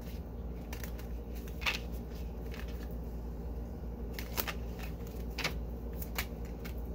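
Oracle card deck shuffled by hand, cards sliding against each other, with several sharper card slaps spread through it over a steady low hum.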